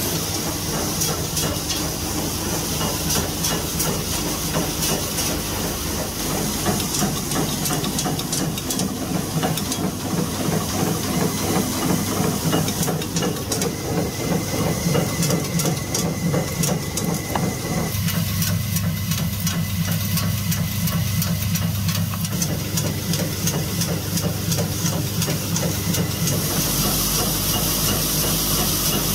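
Screw-making machines running: a steady mechanical clatter of fast, dense clicks over a low hum. The mix changes about two thirds of the way in and again near the end.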